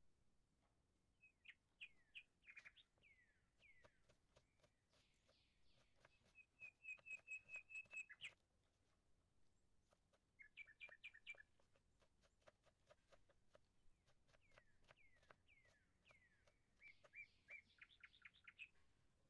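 Faint birdsong: falling whistled chirps and quick trills of repeated notes, in groups with short pauses between, and scattered faint clicks.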